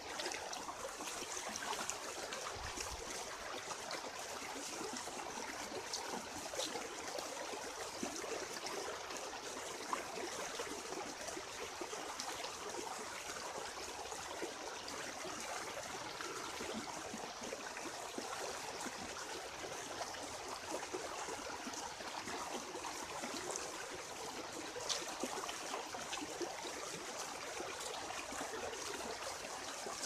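Steady rush of a shallow stream running over rocks, with a few faint clicks.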